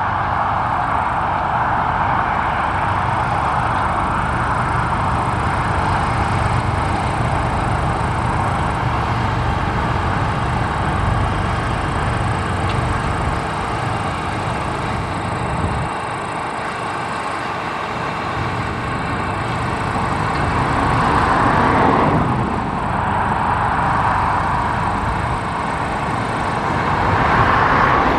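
Claas Lexion 670 combine harvester running while harvesting, a steady dense machine noise that swells louder twice near the end.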